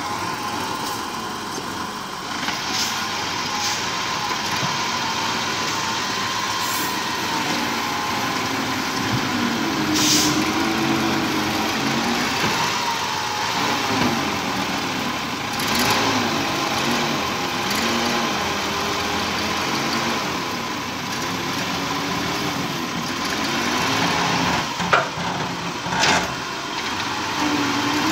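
Nissan Diesel skip-loader truck's diesel engine running under load with its pitch rising and falling, as it powers the hydraulic arms lifting a loaded skip bin. A few short knocks from the lifting gear.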